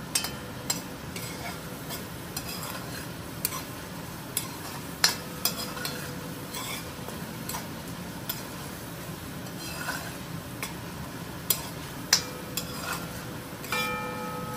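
Curry sizzling as it fries in a pot, stirred with a metal spoon that scrapes and knocks against the pot now and then. The sharpest knock comes about five seconds in.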